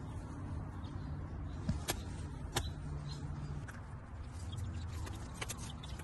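Gloved hands working in garden soil: a few sharp clicks and taps over a low steady rumble.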